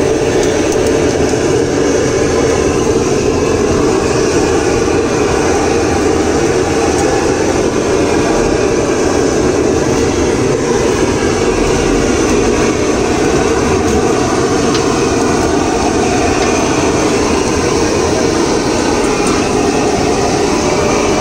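Handheld gas blowtorch burning steadily, a loud, even rush of flame.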